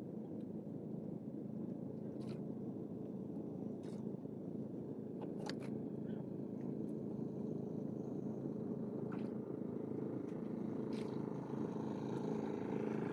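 A steady low engine hum, with a few faint short clicks scattered through it.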